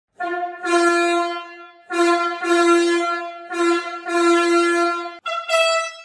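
Truck air horn sounding three times, each a short toot followed by a long blast. Near the end the horn comes again pitched about an octave higher.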